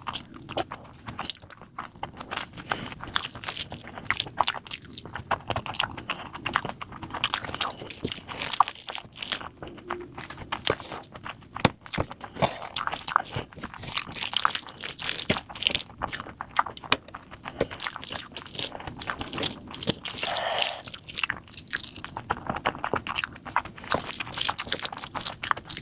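Close-miked chewing and biting of egg curry with rice, with many irregular wet mouth clicks.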